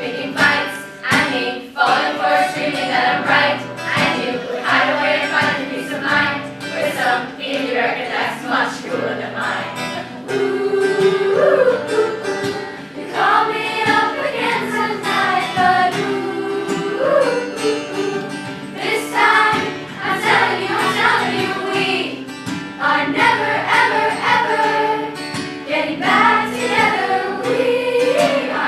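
A school choir singing a song with acoustic guitar strumming along.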